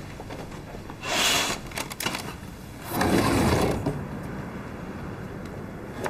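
An office window being opened: two noisy sliding movements, the first brief about a second in and the second longer about three seconds in, with a few clicks between.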